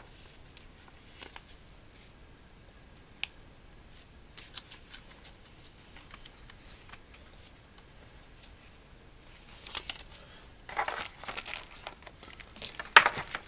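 Paper instruction leaflets rustling and flipping in the hands, with small taps and clicks. From about ten seconds in, louder bursts of crinkling as the packaging is handled, the loudest just before the end.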